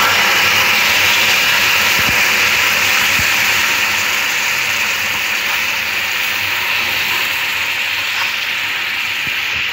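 Hot caramelised sugar sizzling and boiling hard as half a cup of water hits it, a loud steady hiss that eases slightly over the seconds. A couple of faint knocks sound about two and three seconds in.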